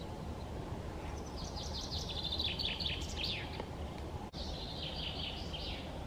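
A songbird sings two short, rapid trilled phrases, the first starting about a second in and the second just after the middle, over a steady low background rumble.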